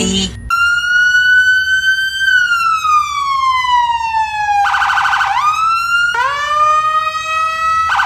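Police car electronic siren: a long wailing tone that climbs slightly, then slowly falls, breaks into a fast warble about five seconds in, and goes on in rising whoops to the end.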